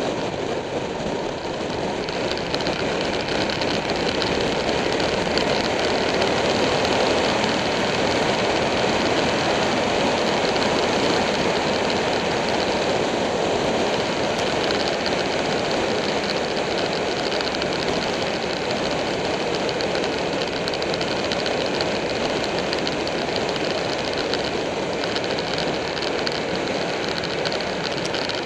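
Buell 1125R's liquid-cooled V-twin engine running steadily at road speed, mixed with heavy wind rush over the bike-mounted camera's microphone.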